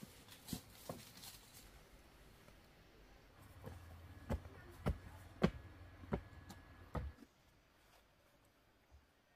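A series of sharp knocks: two faint ones near the start, then about six stronger ones a little over half a second apart over a faint low hum, stopping about seven seconds in.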